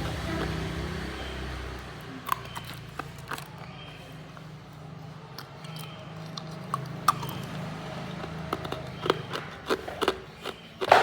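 Hard ice being bitten and chewed close to the microphone: irregular sharp cracks and crunches, coming thicker and louder toward the end.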